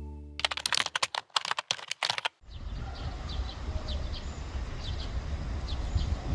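Rapid keyboard-typing clicks, a typing sound effect, for about two seconds just after a music note dies away. Then outdoor ambience with a low wind rumble on the microphone and faint, repeated chirps.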